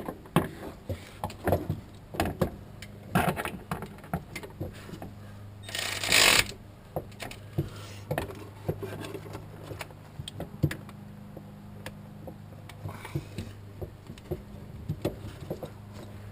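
Metal hand tools and sockets clinking and knocking in scattered irregular taps, over a steady low hum, with one short louder rushing burst about six seconds in.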